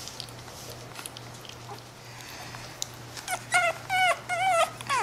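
French bulldog puppy whimpering in a run of about five short, high whines, starting a few seconds in, the last one falling in pitch. It is the whine of a four-week-old puppy that is losing interest in her mush. A low steady hum runs underneath.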